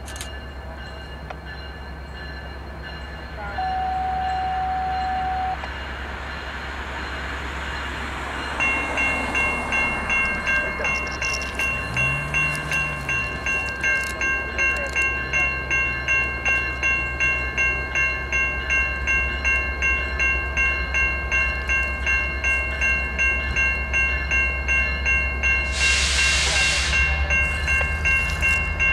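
A distant train horn sounds once, one steady note for about two seconds, from the approaching Piedmont passenger train. From about eight seconds in, a grade-crossing bell rings steadily at about two strokes a second, signalling the train's approach. A short hiss comes near the end.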